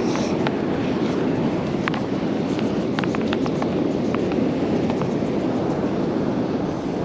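Ocean surf rushing steadily on a choppy sea, with scattered faint light ticks.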